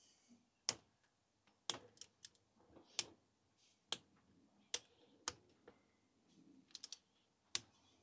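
Click-type torque wrench tightening the cam cap bolts: sharp clicks about once a second, some in quick runs of two or three, each bolt clicking off at the 15 Nm setting.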